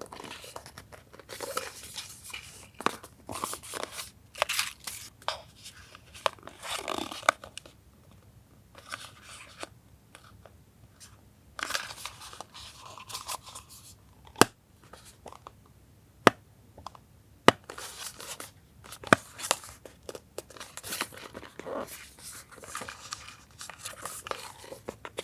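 Paper and packaging being handled and torn: irregular rustling, crinkling and tearing, with quieter pauses between. A few single sharp clicks or taps fall in the middle stretch.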